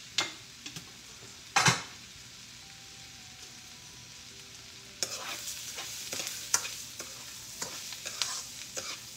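Dry rice sizzling in butter with onion and peppers in a frying pan, with a single sharp knock about one and a half seconds in. From about five seconds on, it is stirred with metal tongs, which scrape and click against the pan over a louder sizzle.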